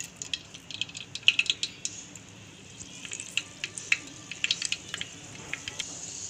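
Fenugreek seeds crackling in hot oil as they are tempered: irregular sharp pops and spits over a faint frying hiss.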